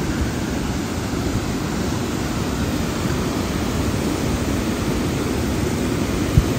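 Water rushing steadily over a low river weir and churning past the rocks below it.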